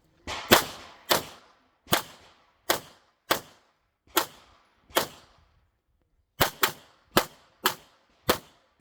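Handgun shots fired in a practical-shooting course of fire: about thirteen sharp reports, roughly one every half second to a second, with a pause of about a second and a half in the middle before a quicker string of shots.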